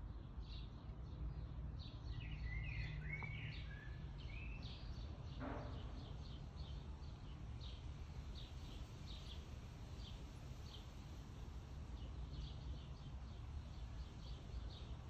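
Faint outdoor ambience: a steady low rumble with a bird chirping over and over, about two short high chirps a second, and a few brief warbling calls a couple of seconds in.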